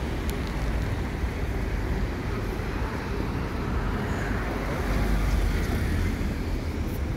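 Steady outdoor street noise: a low rumble and hiss of road traffic mixed with wind buffeting the microphone.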